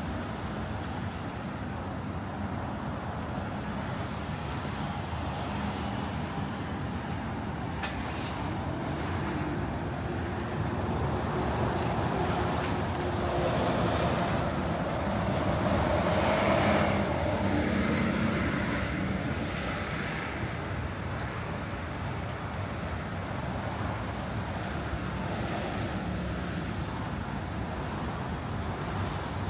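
Road traffic: a steady hum of passing cars, with one vehicle coming close and passing, loudest about halfway through before fading.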